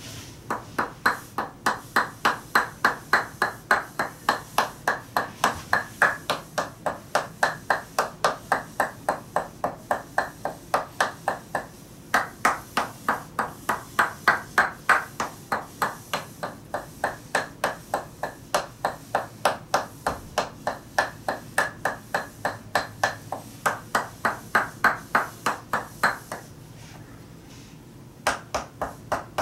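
Tok sen massage: a wooden mallet striking a wooden stick held against the body through a towel, giving a steady run of wooden taps about three a second, with a short pause near the end.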